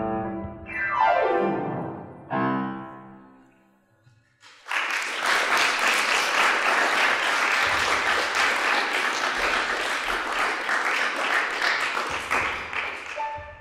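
A piece of ensemble music ends with a fast downward run and a final chord that dies away; after a brief pause, the audience applauds steadily, the clapping fading near the end.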